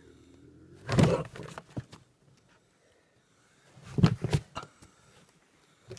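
A bobcat caught in a foothold trap growling, with two sudden loud hissing outbursts, about a second in and again about four seconds in.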